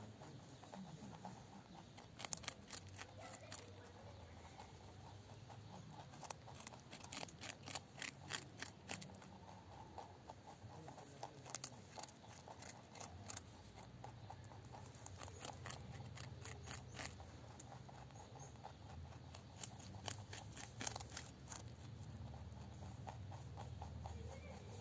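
Rabbits chewing raw carrot: runs of small, crisp crunching clicks that come in bursts of one to three seconds, several times, over a faint low hum.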